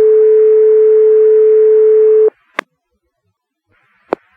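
Two-tone sequential fire-pager alert sent over the dispatch radio: the second, longer tone holds steady and cuts off sharply about two seconds in, sounded to set off volunteer firefighters' pagers before a call. Two short sharp radio clicks follow.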